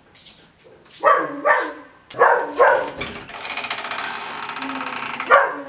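A dog barks about four times, then a door scrapes and rattles open with a steady rasping noise lasting about two seconds.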